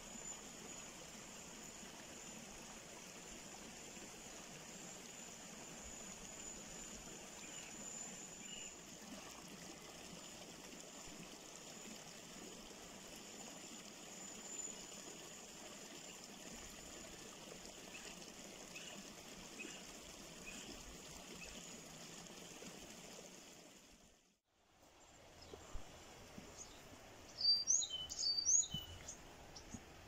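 Steady wash of running river water, with faint bird chirps now and then. After a short break near the end, a bird gives several loud, sharp calls.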